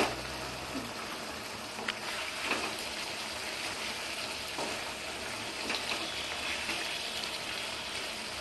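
Potato and duck-egg curry simmering and sizzling in a non-stick kadai on a gas flame while a wooden spatula stirs it. A sharp knock right at the start, then a few light taps and scrapes of the spatula against the pan.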